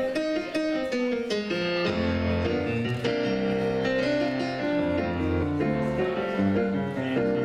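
Solo piano playing a song's introduction, with bass notes under moving chords and a melody.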